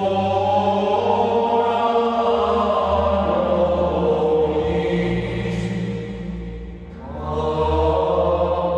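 Background music of Gregorian chant: voices singing a slow, sustained chant line, with a short pause between phrases about seven seconds in.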